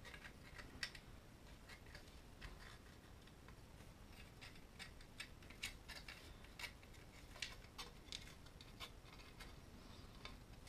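Faint, irregular clicks and light taps of the plastic FPV undertray and its video transmitter being handled and fitted together.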